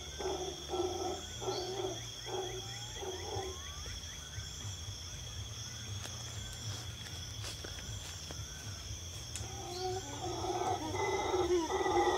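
An animal's low, repeated calls: a run of short calls that stops about three and a half seconds in and comes back louder and more drawn-out near the end, over a steady high-pitched drone.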